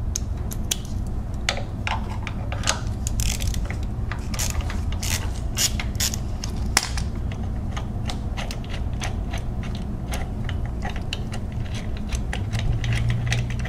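Hand ratchet on a long socket extension clicking in short, irregular runs as a bracket bolt is backed out.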